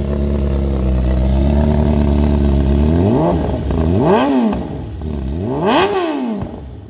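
BMW S1000RR's flat-plane inline-four engine idling steadily, then blipped three times so the revs rise and fall sharply, the last two blips going highest. Its even, evenly spaced firing note comes from the flat-plane crank, which fires a cylinder every 180 degrees.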